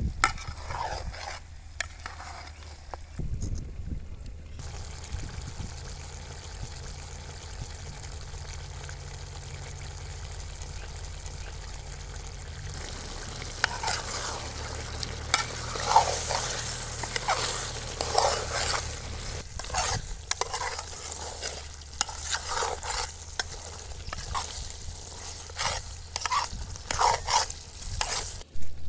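A metal ladle stirring and scraping chicken and brinjal as they fry in a large metal pot, with sizzling. The stirring strokes become louder and more frequent about halfway through.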